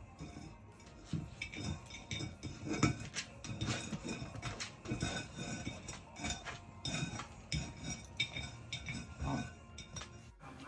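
A dog's food dish clinking and knocking irregularly against the floor as a puppy mouths it and picks it up.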